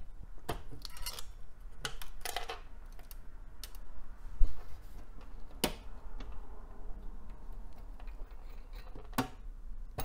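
CPU heatsink with its clip-on fan being unclipped and worked off a Socket 7 processor. Scattered handling clicks, with a dull knock a little before halfway that is the loudest sound, and sharp clicks soon after it and near the end.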